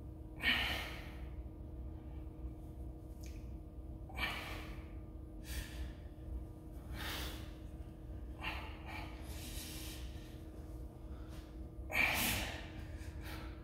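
A man's heavy, effortful breaths as he strains through dumbbell curls: about seven noisy puffs and gasps a second or two apart, the loudest about half a second in and near the end. A steady low hum lies underneath.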